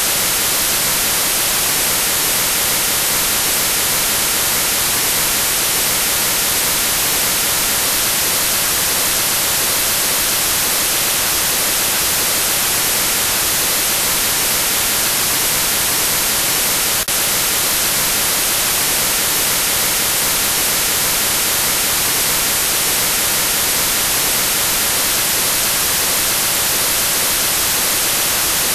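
Steady, high hiss like white noise, strongest in the highest pitches: a recreation of a person's tinnitus. It breaks off for an instant a little past halfway, then runs on unchanged.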